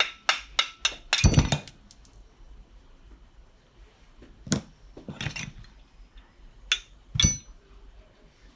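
Metal tools knocking and clinking on a Piaggio Si moped's two-stroke engine as its crankcase is worked apart. A quick run of sharp knocks comes in the first two seconds, then scattered single knocks, a few with a short metallic ring.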